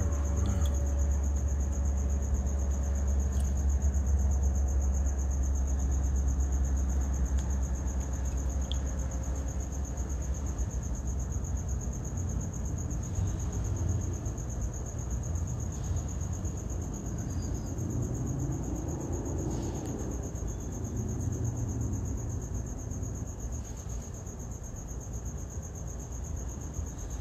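Night chorus of crickets: a steady, continuous high-pitched trill. Under it runs a low rumble that eases off somewhat in the second half.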